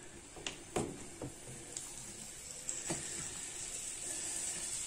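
Chicken breast pieces in a frying pan beginning to sizzle as the pan heats, the hiss growing slowly louder. A wooden spatula knocks against the pan a few times as the chicken is stirred.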